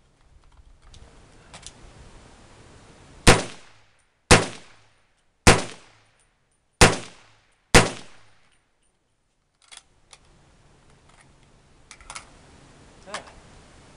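Five shots from a 1943 M1 Carbine in .30 Carbine with an aftermarket muzzle compensator, fired about a second apart, each followed by a short ringing echo. The five rounds empty its 5-round magazine, and a few light clicks follow near the end.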